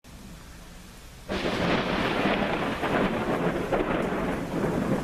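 A thunderclap breaks suddenly about a second in and crackles and rolls on loudly over falling rain.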